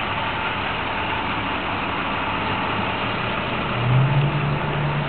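A motor vehicle engine running steadily, with a low hum that comes in and grows louder about four seconds in.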